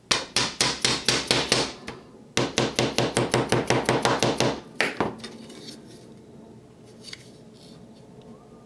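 Fret wire being tapped into the fret slots of a cigar box guitar's wooden fretboard with a small hammer. The taps come in two quick runs of about six a second, the first about a second and a half long and the second about two seconds, with a couple of last taps about five seconds in.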